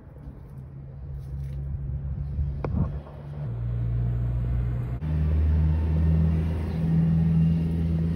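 A low, steady engine rumble, like a motor vehicle running close by, growing louder about five seconds in, with a single sharp click a little before the middle.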